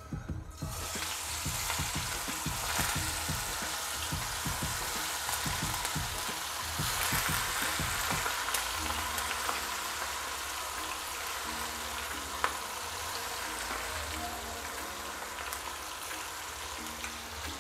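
Marinated chicken kabab pieces sizzling as they deep-fry in hot oil in a kadai; the sizzle starts about half a second in, as the first pieces go into the oil, then carries on steadily.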